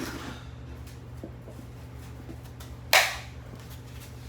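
A single sharp, loud smashing crack about three seconds in, a hard blow on plastic while a cordless phone and its power supply are being smashed, over a steady low hum.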